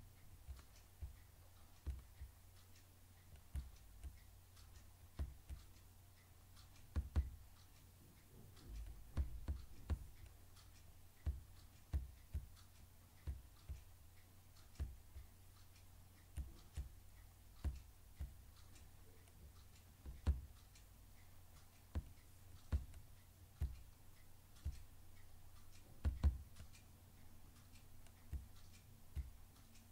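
Computer mouse clicking, faint and irregular, short clicks about once a second with some quick pairs, over a steady low hum.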